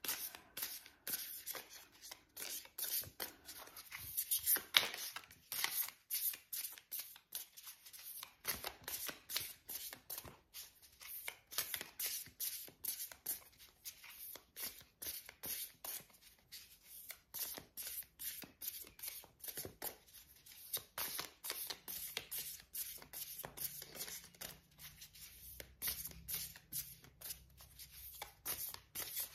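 A deck of tarot cards being shuffled by hand, the cards passed from one hand to the other in quick, light slaps and rustles several times a second, without a break.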